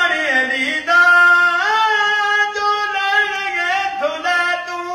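An old man singing a Punjabi noha, unaccompanied. He holds long notes that bend and slide in pitch, with short breaths about a second in and again near the end.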